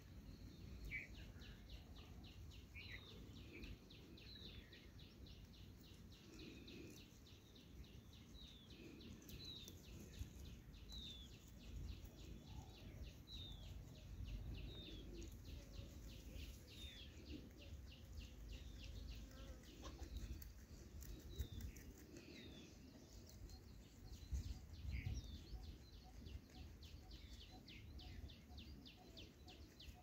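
Small birds chirping in short, high calls that slide in pitch and come about once a second, over a faint low rumble.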